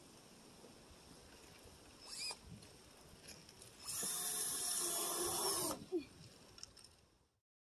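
Cordless drill driving screws into the shed roof: a short whir about two seconds in, then a steady two-second run from about four seconds in, followed by a single sharp knock.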